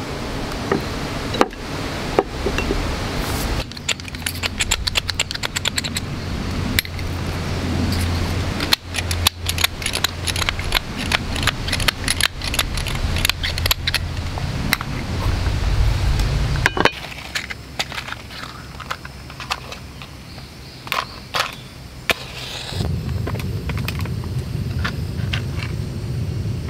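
Food being handled in a cast-iron sandwich pan, with dense, quick metallic clicks and clinks through the first half. Near the end, after a few separate clicks, a camping gas burner is lit. Its built-in igniter has failed, and once lit the flame runs with a steady low rush.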